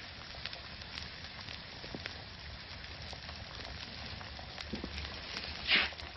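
Steaks sizzling on a diner grill: a steady frying hiss with small scattered ticks, and one short louder noise near the end.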